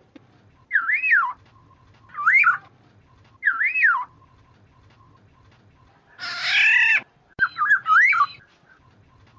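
Black-naped oriole whistling: three fluty phrases that rise and fall, about a second apart, then a harsher, nasal call about six seconds in, a short click, and a quick burst of whistles.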